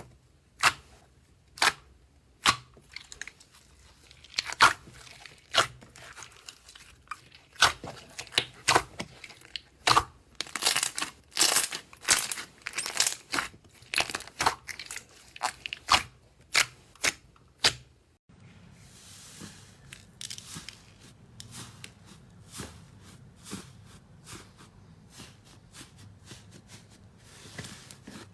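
Slime being handled, giving a run of sharp crackles and pops; about 18 seconds in, a cut brings softer, quieter, denser crackling.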